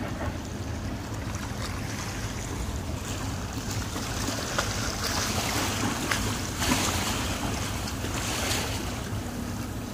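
Wind buffeting the microphone over small waves lapping at the shoreline, with a steady low rumble underneath. The rushing swells louder from about five to nine seconds in.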